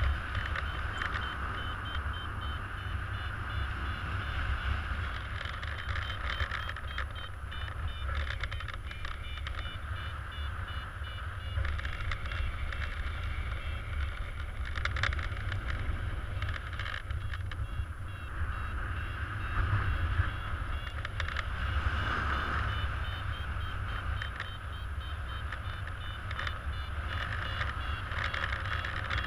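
Paragliding variometer beeping in a steady train of short high tones, its pitch shifting up and down: the audio signal of the glider climbing in lift. Wind rushes across the microphone throughout.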